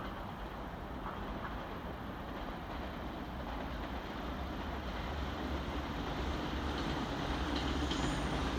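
An electric train approaching on the tracks, its low running rumble growing steadily louder.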